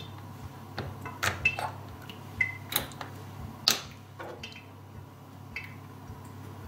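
Light clicks and clinks of small glassware, a glass dropper bottle and a shot glass, handled and set down on a stainless steel sink, with one sharper knock just past the middle. A low steady hum runs underneath.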